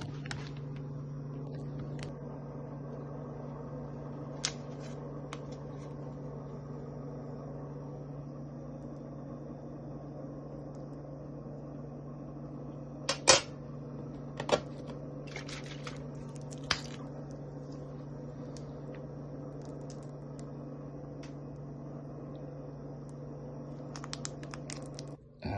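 Steady low hum of a running kitchen appliance, with a few light clinks of a knife and plate about a third and halfway in.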